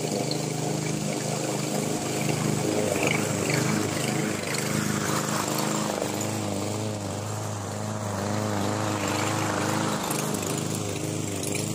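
Freshly tuned-up Briggs & Stratton 675EX single-cylinder mower engine running steadily under load while cutting grass. Its pitch wobbles slightly in a regular ripple in the second half.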